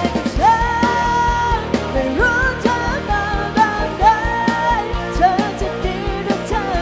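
Live pop-rock band playing: drum kit, bass and electric guitars, with a lead melody of long held notes that slide up into pitch.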